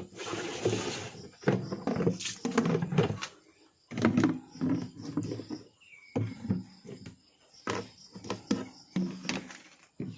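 Farm animals giving short, repeated low calls with brief gaps between them, and one short higher call about six seconds in.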